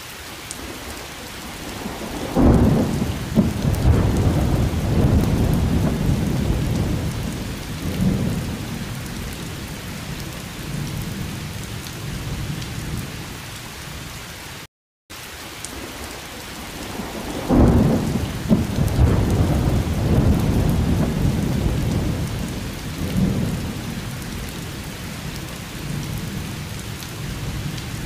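Steady rain with rolling thunder: a sharp crack grows into a long low rumble that fades over several seconds. The same stretch plays twice, with a brief dropout to silence halfway through.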